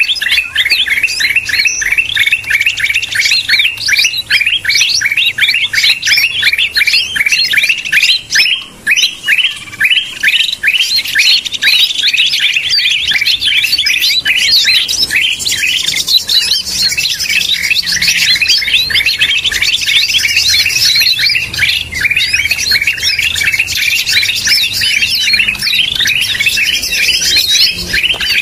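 Green leafbird (cucak hijau) calls, a recorded trapping-lure call: a fast, unbroken run of short, sharp chirps that goes on without a pause.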